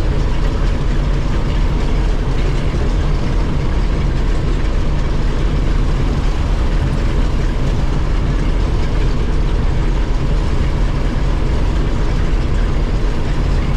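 Combine harvester running steadily under load, its engine a constant low drone under a broad mechanical rush.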